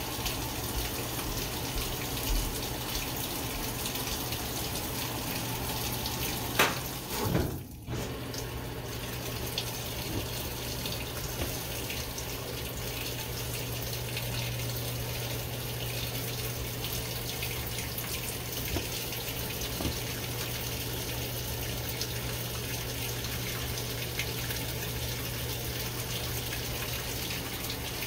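Water running into the drum of a GE GTW720BSN0WS high-efficiency top-load washer as it fills, a steady rush of water over a low steady hum. About seven seconds in, a click and a brief break interrupt it.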